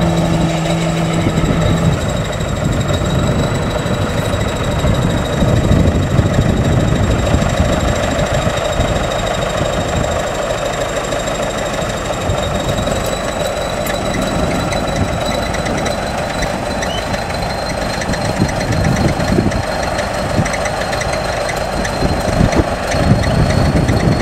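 Crawler bulldozer's diesel engine running under load as the blade pushes soil, a dense low rumble with a steady high whine over it.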